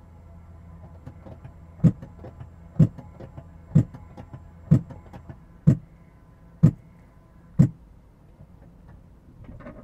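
Battery swap station machinery working beneath the car, heard from inside the cabin: seven loud clunks about a second apart, with lighter ticks between them, over a steady low hum. These are the normal working noises of an automated battery swap.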